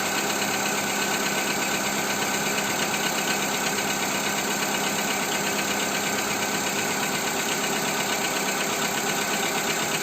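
Skoda Fabia II 1.4 engine idling steadily with a rapid knocking from inside the engine, after a Ceratec oil-additive treatment.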